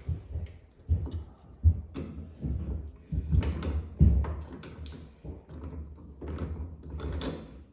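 Irregular knocks, clunks and clicks of hands working on the washing machine's hose fittings, over a low hum.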